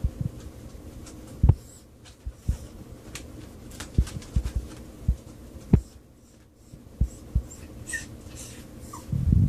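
Australian Silky Terrier sniffing at a rat cage, with short breathy puffs and scattered dull thumps and taps of its paws on the wooden dresser top. A few faint high chirps come near the end.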